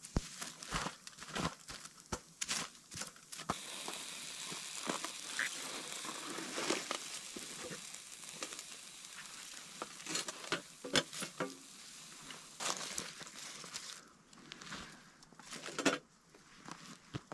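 Thin metal stove windshield being levered and shifted with wooden sticks over hot ash: irregular clicks, knocks and scrapes, with dry leaves crinkling. A steady hiss runs under it from about four seconds in until about fourteen seconds in.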